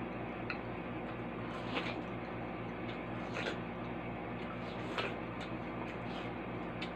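Watermelon slice being bitten and eaten: a few short, wet crunches and sucks into the juicy flesh, roughly every second and a half, over a steady low hum.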